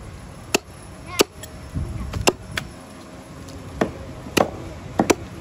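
Meat cleaver chopping buffalo meat on a wooden log chopping block: about seven sharp chops at an uneven pace, two in quick succession near the end.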